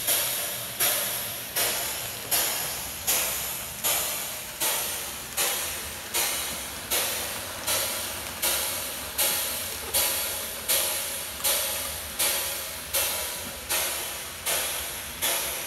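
Steam locomotive chuffing at a steady pace, about four chuffs every three seconds, each a sharp hiss of steam that fades before the next, over a low steady hum.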